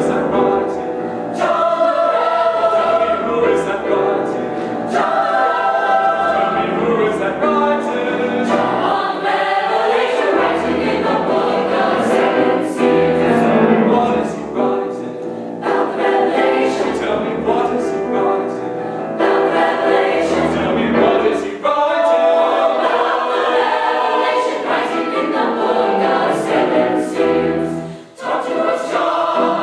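A mixed choir singing a sacred piece in a reverberant chapel, with many voices in harmony and phrases that change every second or so, breaking briefly just before the end.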